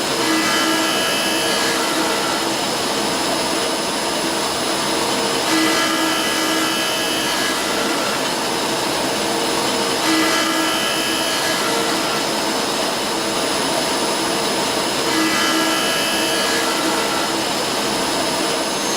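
CNC lathe running with a steady, dense machining noise, and a higher whine that comes back about every five seconds.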